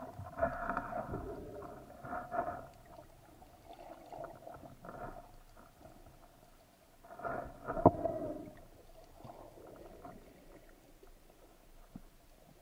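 Underwater sound through a speargun-mounted camera's housing: irregular swishes of water moving past as the diver swims, with one sharp knock about two-thirds of the way in.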